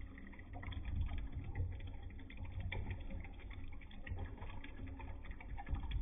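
Coconut water pouring in a thin stream into an earthenware mug: a steady trickle of small, irregular splashes, with a low rumble underneath.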